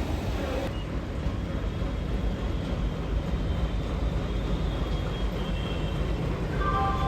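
Steady low rumble of a train moving at a railway station platform. Near the end a cluster of steady tones comes in over it.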